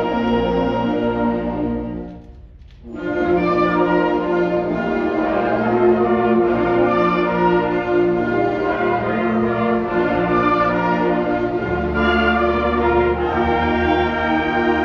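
Student concert band playing a piece for wind instruments. The music breaks off briefly about two seconds in, then the full band comes back in, and the low instruments grow strong near the end.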